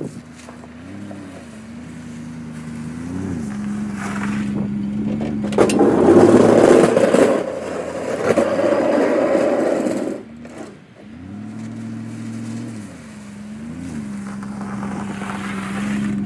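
Chevrolet pickup plow truck's engine running with a steady hum, its pitch rising briefly several times. A louder, rougher noise takes over for about four seconds in the middle.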